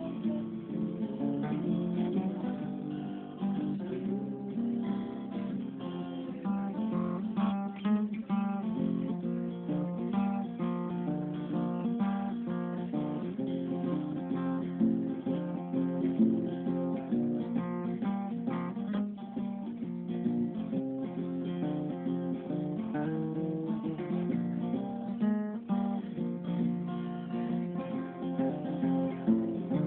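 Instrumental acoustic guitar music, strummed and picked, with a few passages of quick notes and no singing.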